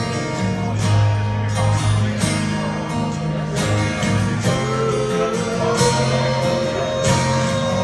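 Live music: an acoustic guitar strummed in a steady rhythm. About halfway through, a single held note slides in and sustains over the strumming.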